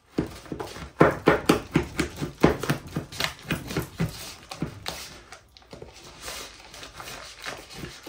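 Bird seed mash being stirred and worked in a container: quick scraping, crunching strokes about four a second, easing off into quieter scraping in the second half.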